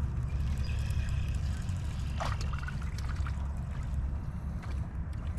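Water trickling and lapping around a kayak, over a steady low rumble, with one short sharp high sound about two seconds in.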